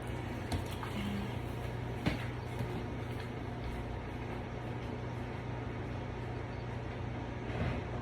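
Vacuum cleaner motor running steadily, sucking standing water out of a dishwasher that won't drain, with a low hum throughout and a sharp click about two seconds in.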